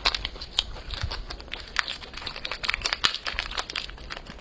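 Clear plastic snack wrapper crinkling and crackling as it is torn open by hand, in a quick run of irregular crackles.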